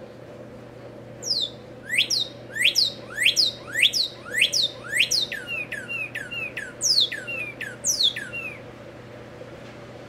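Male northern cardinal singing: a run of loud, clear slurred whistles, about three a second, lasting some seven seconds. From about halfway the notes each take a short lower tail before the song stops.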